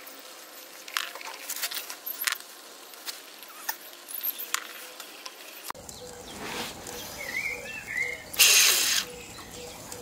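Faint, scattered clicks and taps as the small brass oscillating engine is handled and oiled. Then a short, loud hiss of steam from the Stuart 500 model boiler about eight and a half seconds in, with faint bird chirps just before it.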